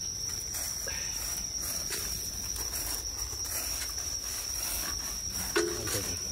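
Crickets trilling in one steady, unbroken high tone, with faint scratching of gloved hands digging through soil and dry leaf litter.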